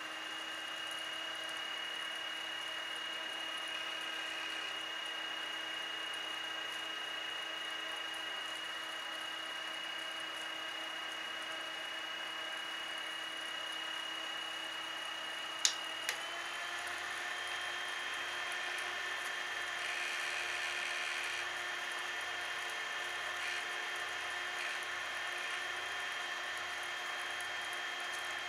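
Small motors of a JACESS rechargeable neck twin fan running with a steady high-pitched whine. About sixteen seconds in there are two clicks, and the whine steps up slightly in pitch as the fan moves up to a stronger speed setting.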